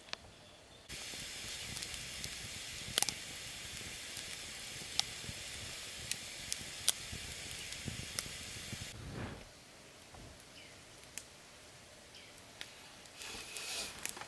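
Wood campfire burning under meat roasting on bamboo skewers: a steady hiss with sharp crackles and pops. About nine seconds in it gives way to quiet outdoor ambience, with some rustling near the end.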